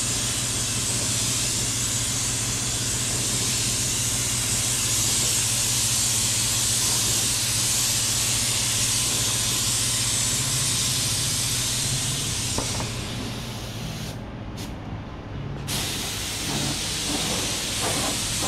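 Compressed air hissing steadily through a gravity-feed spray gun as black epoxy primer is sprayed. The hiss stops for a couple of seconds about two-thirds of the way through, then starts again as the trigger is pulled.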